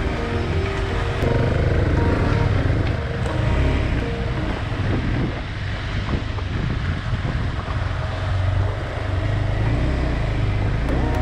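KTM 390 Adventure's single-cylinder engine running while the motorcycle is ridden, a steady low rumble whose note shifts a little in the first seconds.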